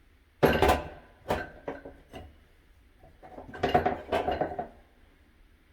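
Clinking and clattering of metal light-fixture parts and tools being handled. There is a burst about half a second in, a few single knocks after it, and a second run of clatter between about three and four and a half seconds.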